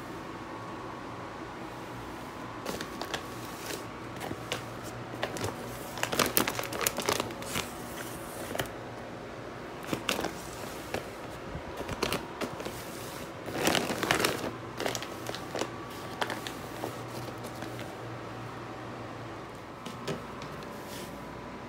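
Clear plastic zippered storage case (IKEA PÄRKLA) being handled and turned over, its thin plastic crinkling in irregular bursts.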